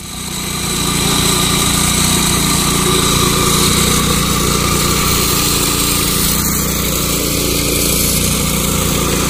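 Petrol-engined abrasive disc rail cutter running at full speed, its cutting disc grinding through a steel rail. A steady, loud engine-and-grinding noise that builds up over the first second and then holds.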